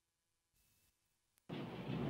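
Near silence, then about one and a half seconds in a sudden loud, steady rush of jet aircraft noise on an aircraft carrier's flight deck.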